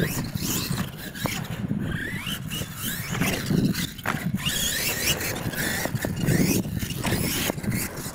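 Radio-controlled monster truck's motor and drivetrain whining at a high pitch, rising and falling over and over as the truck accelerates and backs off on dirt, with a few sharp knocks.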